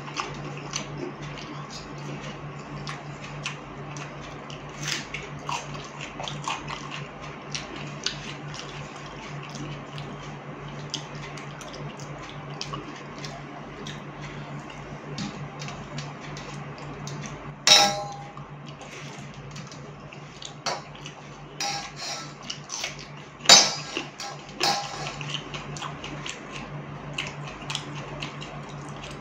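A hand stirring and scooping watery fermented rice in a stainless steel plate: small wet clicks and squelches throughout, with a few louder ringing clinks on the steel plate past the middle, the loudest about two-thirds through. A steady low hum runs underneath.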